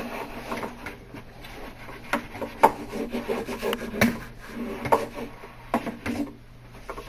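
Hand speed roller pressed hard and rolled back and forth over peel-and-stick edge banding on a wooden board's edge, packing the band down so it sticks. A rough rolling noise with a few scattered sharp knocks.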